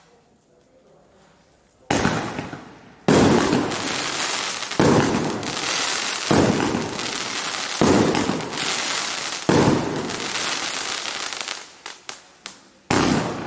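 A 31-shot consumer fireworks cake with 1-inch and 1.2-inch tubes firing. About two seconds in, shots start going off about every second and a half, six loud bursts in all, with a dense crackle filling the gaps between them. Near the end come a few scattered small pops and one last burst.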